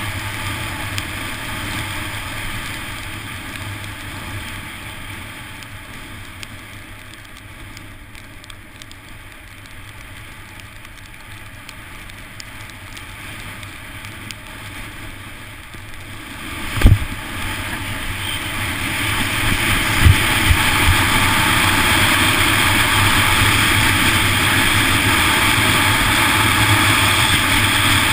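Wind rushing over a helmet-mounted GoPro HERO2 with downhill race skis running on a hard-packed course at speed. A little past halfway there is one sharp thump, and the rush then grows louder and stays loud.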